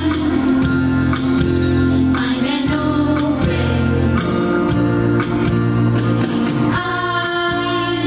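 Girls' choir singing a song over instrumental accompaniment.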